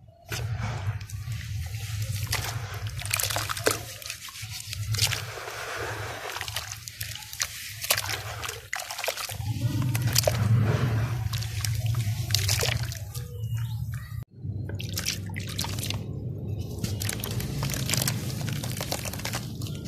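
Dry, crumbly dirt-and-sand mix being squeezed and crumbled by hand, with gritty crunching and grains and clumps trickling back into a plastic tub. The crunch and patter surge and ease over a steady low hum.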